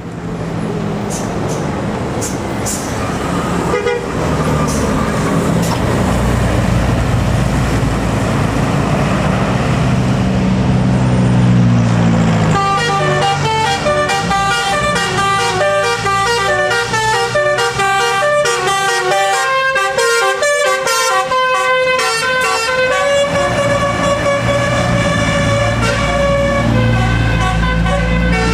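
Tour bus engine growing louder and rising in pitch, then about twelve seconds in the bus's telolet musical horn plays a quick tune of stepped notes, ending in a few longer held notes.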